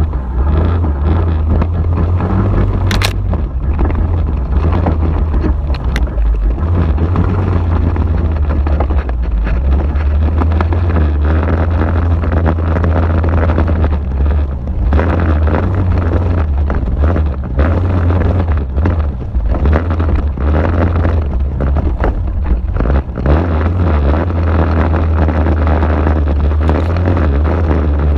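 ATV (quad bike) engine running as it rides a bumpy dirt trail, a strong low rumble whose pitch wavers with the throttle, picked up by a GoPro in its waterproof case mounted on the quad, with wind noise and occasional sharp knocks.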